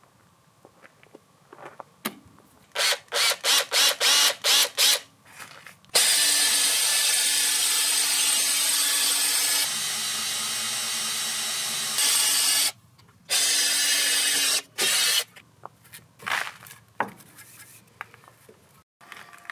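Cordless drill with a long auger bit boring a peg hole through oak timbers for a draw-bored joint. A run of short stabs on the trigger comes first, then about six seconds of steady drilling and two more short runs. Scattered wooden knocks follow as the timbers are handled.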